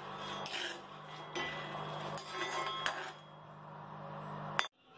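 Steel ladle stirring raw peanuts as they dry-roast in a cast-iron kadai: the nuts rattle and the ladle scrapes and clinks against the iron in several short bursts over a steady low hum. A sharp click comes just before the end, and the sound then cuts off suddenly.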